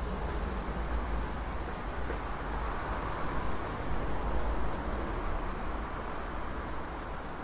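Outdoor city street ambience: a steady wash of traffic and crowd noise with a heavy rumble of wind on the microphone.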